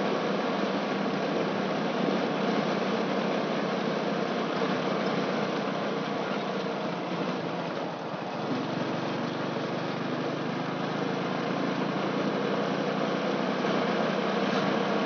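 Vehicle engine running steadily on the move, with road and wind noise. The sound dips briefly about halfway through, then settles again at a slightly different engine pitch.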